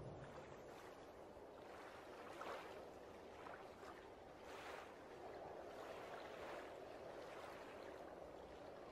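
Faint sloshing of footsteps wading through shallow water, with soft splashes about two and a half and four and a half seconds in over a steady watery hiss.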